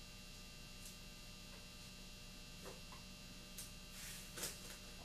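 Faint steady electrical hum, with a few soft brushing scrapes as a round wooden rod smears Shoe Goo over a canvas patch. The loudest scrape comes near the end.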